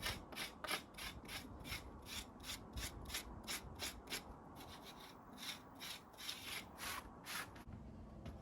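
Repeated back-and-forth rubbing or rasping strokes of a hand tool on a hard surface, about three strokes a second, stopping near the end.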